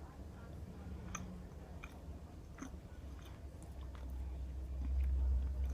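Close-up chewing of a mouthful of chicken sandwich, with faint wet mouth clicks about once a second. A low rumble builds in the second half.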